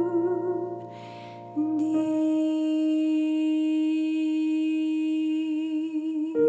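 A woman humming a slow hymn melody over sustained digital piano chords, with a short breath about a second in and then one long held note with gentle vibrato.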